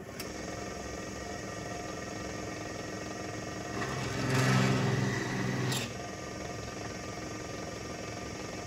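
Benchtop drill press running steadily with a countersink bit, which cuts into a drilled hole in a steel tong half for about two seconds near the middle, deburring it; the cut is the loudest part.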